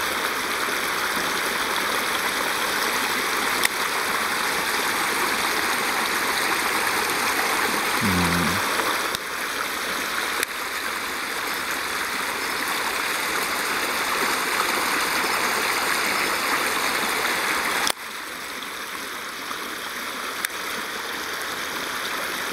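Steady rush of flowing water, with a few faint clicks and one brief low sound about eight seconds in.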